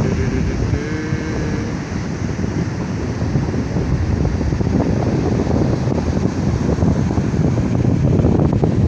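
Ocean surf breaking on a beach, heavily overlaid by wind buffeting the microphone.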